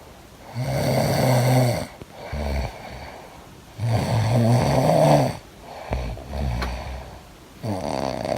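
A person snoring: three long, loud snores about three and a half seconds apart, with softer breaths in between.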